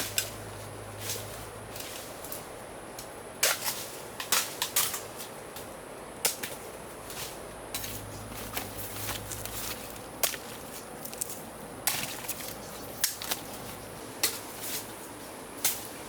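Bamboo shoots being broken and cut off during harvesting: irregular sharp cracks and snaps, several in quick succession about four seconds in.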